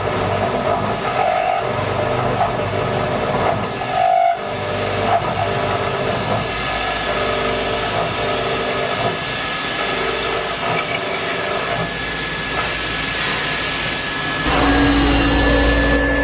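CNC beam drilling machine running, a steady mechanical din with several held tones. Near the end it gets louder as a hiss and a low rumble join in.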